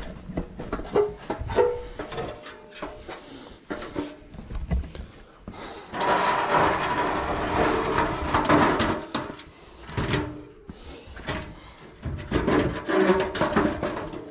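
Handling noise from a camera pressed against a cotton T-shirt: fabric rubbing over the microphone with many knocks and clicks as someone climbs an aluminium stepladder. A dense scraping rub runs from about six to nine seconds in.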